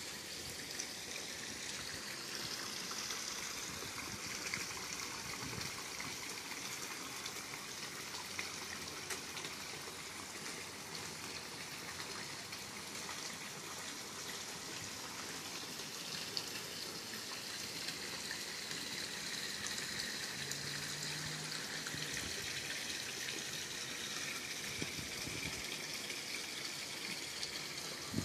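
Water spilling steadily from a pool's sheer-descent waterfall into the pool: a continuous splashing trickle.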